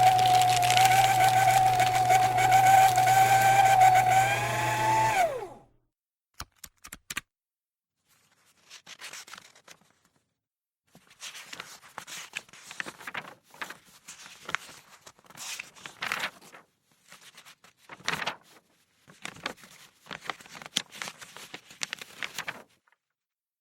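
A small electric motor runs with a steady whine and low hum, then winds down and stops about five seconds in. After that come a series of short, irregular scratchy strokes and rustles.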